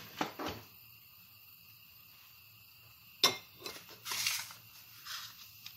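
Kitchenware clattering: a couple of light clinks at the start, then a sharp knock about three seconds in followed by brief rattling and scraping.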